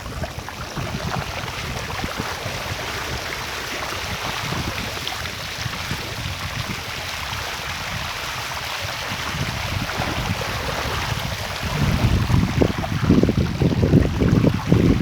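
Floodwater running with a steady rushing hiss. Near the end, wind buffets the microphone with heavy low rumbling.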